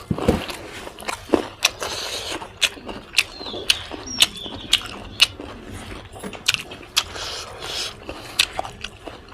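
A person chewing pork close to the microphone, with a run of sharp, wet mouth smacks about every half second.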